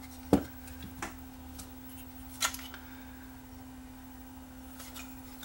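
A few sharp clicks and light knocks as the VCR's power supply board is handled and set back into the chassis. The loudest click comes about a third of a second in, with smaller ones scattered after, over a faint steady hum.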